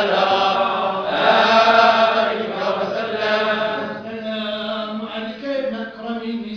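Men of the Tijani Sufi order chanting together in unison, long held notes of a devotional chant sung by many voices, a little quieter in the second half.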